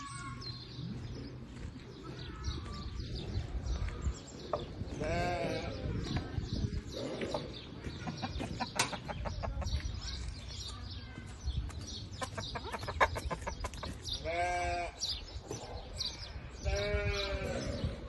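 Livestock bleating three times, each call quavering: once about five seconds in, then twice near the end. A fast run of clicks comes in between.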